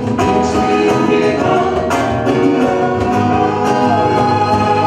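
A man singing a song while strumming an acoustic-electric guitar.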